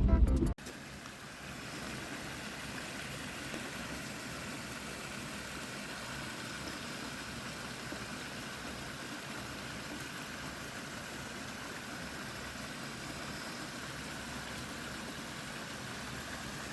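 Vehicle driving slowly on a rough dirt forest road: steady engine and road noise.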